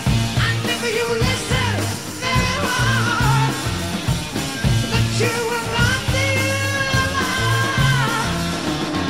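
A song with a sung vocal melody over a steady beat and bass line.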